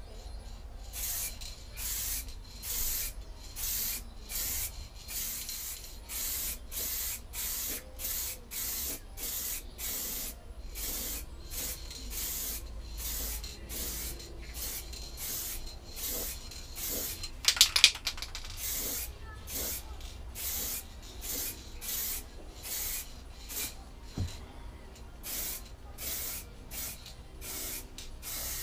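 Aerosol spray paint can hissing in short repeated bursts, about two a second, as coats of paint are sprayed on. A brief rattle about two-thirds through is the loudest moment.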